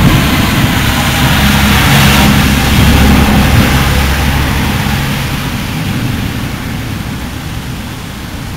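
A deep, thunder-like rolling rumble from fireworks shots, loud for about five seconds and then slowly fading away.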